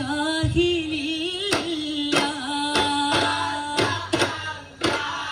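Duffmuttu performance: voices singing a melodic song together over beats on daf frame drums, a sharp drum stroke falling about every half second.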